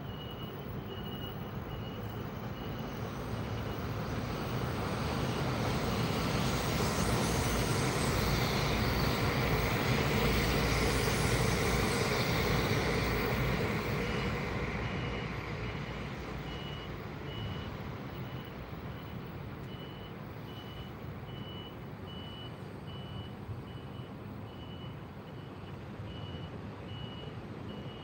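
Rumble of a train passing, building over several seconds, peaking about ten seconds in and then fading. A high electronic beep repeats about once a second at the start and again from about fourteen seconds in.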